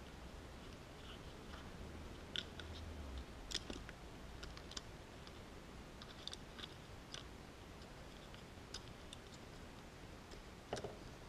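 Faint, scattered light clicks and taps of small plastic quadcopter parts being handled, with a duller knock near the end as a white Hubsan H107C+ frame is picked up and turned over.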